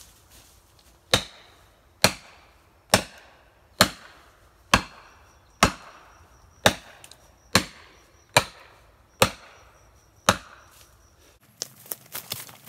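Eleven heavy, sharp blows of a hand striking tool on wood at the base of a big white pine, about one a second, each ringing briefly. Footsteps rustle through leaf litter near the end.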